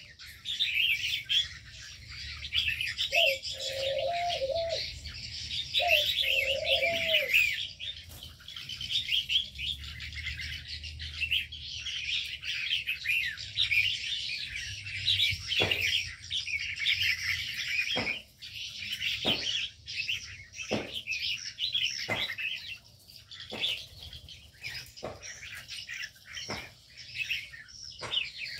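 Many small aviary birds chirping and twittering together, with a dove cooing twice in the first few seconds. In the second half, short sharp sounds come about once a second over the chirping.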